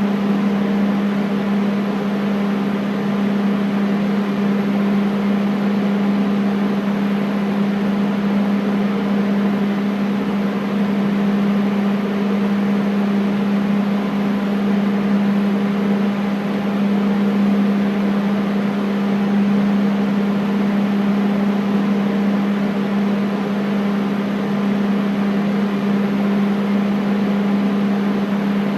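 Air conditioner running steadily: a constant low hum with fainter higher tones over an even rush of air.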